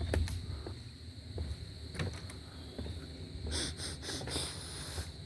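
Outdoor ambience with a steady high-pitched insect chorus and a low rumble underneath, broken by scattered light clicks and a brief patch of rustling a little past the middle.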